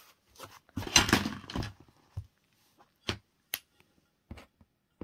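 Hands handling a paper notepad and card items on a tabletop: a burst of paper rustling about a second in, followed by a few scattered light taps and clicks.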